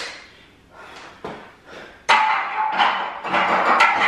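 Loaded steel barbell being racked in a power rack: a run of loud metal clanks from bar, plates and hooks, with a steady ringing tone, starting about two seconds in after a few softer knocks.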